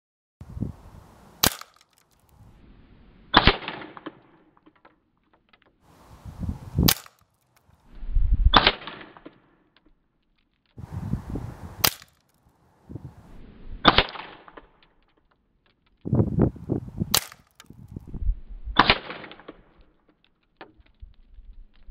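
.177 air rifle shots, four of them in separate short takes, each a sharp crack. Each crack is followed about two seconds later by a second, duller crack.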